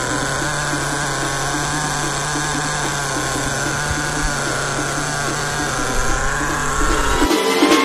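Small nitro-methanol engine of an RC car running steadily at idle, an even buzzing hum that holds one pitch. It cuts off abruptly near the end, giving way to music.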